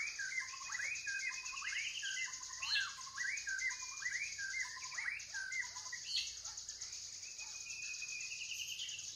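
Birds chirping and calling: many short, quickly repeated chirps and whistles over a steady high hiss, a nature ambience.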